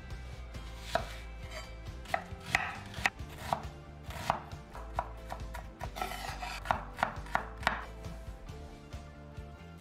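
Chef's knife dicing a peeled onion on a wooden cutting board: the blade knocks on the wood about a dozen times at an uneven pace, starting about a second in and stopping near the end.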